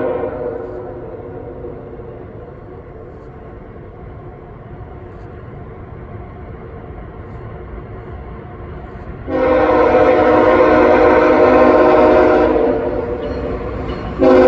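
A GE ET44AH locomotive's Nathan K5HL five-chime air horn sounding for a grade crossing. A blast fades out at the start, then comes a quieter stretch. A loud long blast starts about nine seconds in and lasts over three seconds, and the next blast starts near the end.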